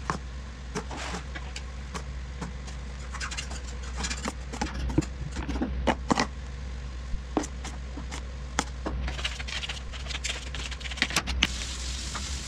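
A knife scraping and tapping against a plate and cake while spreading cream, in scattered light clicks and scrapes over a steady low hum.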